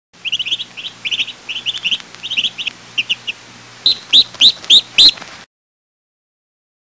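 Birds chirping: a quick, uneven run of short high chirps, then five louder rising calls in quick succession, over a low steady hum. The sound cuts off abruptly about two-thirds of the way through.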